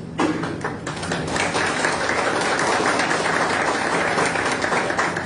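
Applause, breaking out suddenly and filling in over the first second or so.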